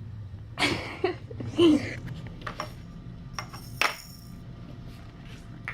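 Small hard objects clinking and knocking: a few short clatters in the first two seconds, then several separate sharp clicks, over a steady low hum.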